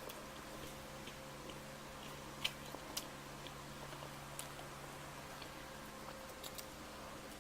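Person chewing pizza close to the microphone, with a few faint sharp mouth clicks, the first about two and a half seconds in.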